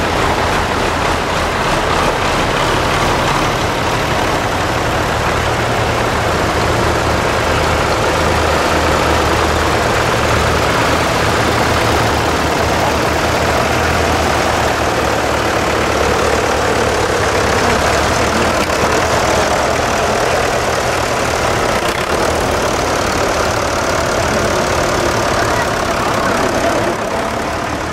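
Old tractor engines, among them a Ford and a Massey Ferguson, running at low speed as the tractors drive past one after another. There is a steady low engine hum that thins out about three-quarters of the way through.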